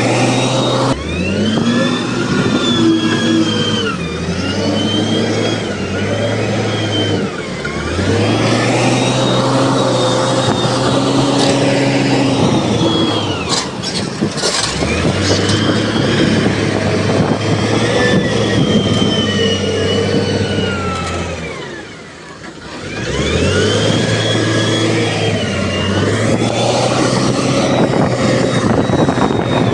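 Diesel engine of heavy earthmoving machinery revving up and down again and again under working load, with a high whine rising and falling along with it. The engine drops away briefly about two-thirds of the way through, then picks up again.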